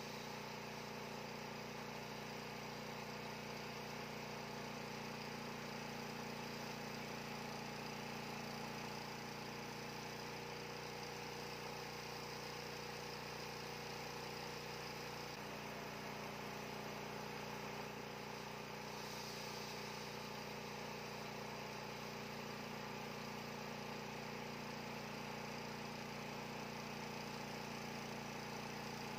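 Bandsaw mill running steadily under load as its band blade cuts through a hardwood burl on a log.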